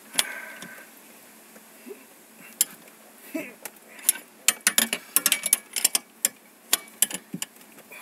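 Steel open-ended wrench clinking against a seat-bracket bolt and the steel seat bracket as it is fitted and turned a quarter turn at a time: a string of sharp, irregular metal clicks, thickest in a quick run a little past the middle.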